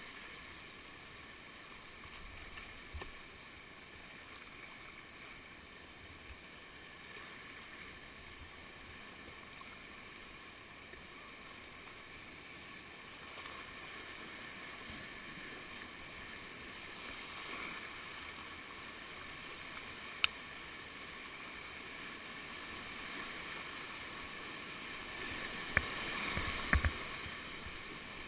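Whitewater of a shallow river rapid rushing past a kayak, a steady hiss that grows a little louder in the second half, with the splash of paddle strokes. A few sharp knocks stand out, one about twenty seconds in and two or three near the end.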